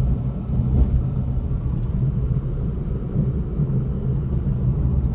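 Cabin road noise in a moving MG Comet EV on a rough concrete road, window up: a steady low tyre rumble with no rattle from the driver-side door, the door-beading rattle having been fixed.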